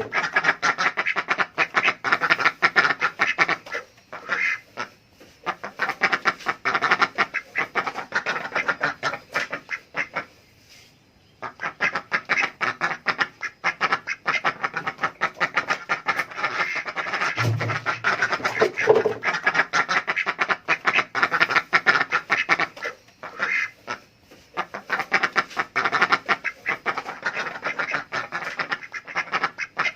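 Adult domestic ducks quacking in a rapid, continuous chorus as they beg for food, with a brief lull about ten seconds in.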